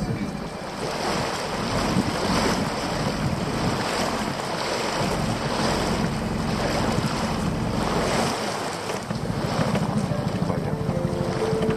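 Wind buffeting the microphone and water rushing past the hull of a moving inflatable Zodiac boat, rising and falling in pulses every second or so, over a steady low hum of its outboard motor.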